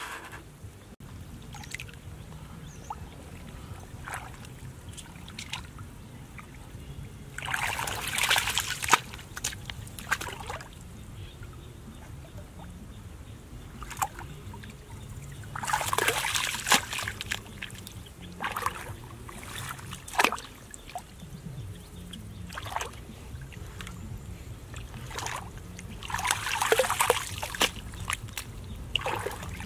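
Hands scooping wet mud and sloshing through shallow muddy water, with three longer bouts of splashing and smaller splashes and slaps of mud between them.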